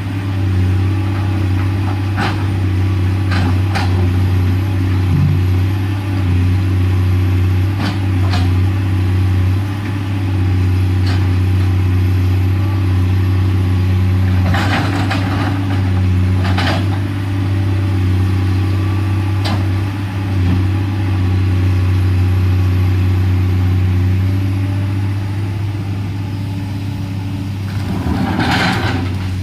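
Komatsu PC210LC excavator's diesel engine running steadily, with sharp knocks every few seconds and a longer rattling burst near the end.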